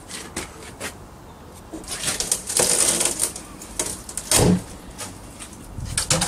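Plywood panel being pulled off a boarded-up door opening: scattered knocks and clicks, then a loud cracking, scraping stretch about two seconds in, and a heavy thump a little after four seconds.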